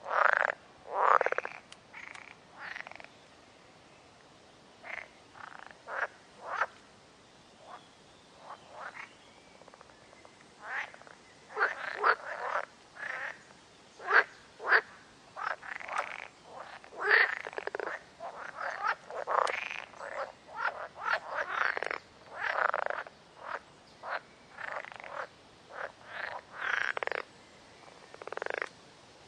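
Frogs croaking in short, irregular calls, sparse for the first ten seconds or so, then coming thick and overlapping.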